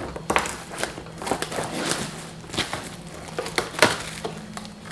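Flat-packed cardboard storage boxes being handled: irregular rustling and crinkling of plastic wrap, with light taps and scrapes of cardboard panels on a table.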